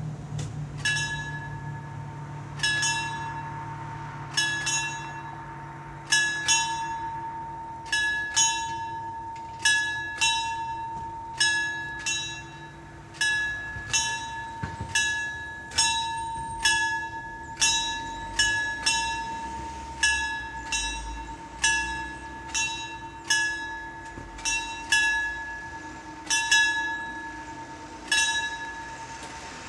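Level-crossing warning bells on an Italian FS64-type crossing, striking over and over at about one strike a second, each strike ringing on. This is the crossing's warning as the barriers are about to come down.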